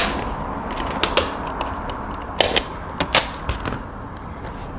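Packing tape being handled with its dispenser and pressed down onto a foam wing: a handful of short, sharp crackles and taps.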